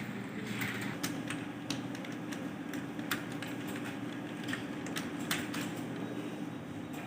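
Someone typing on a computer keyboard: irregular key clicks, several a second, over a steady low hum.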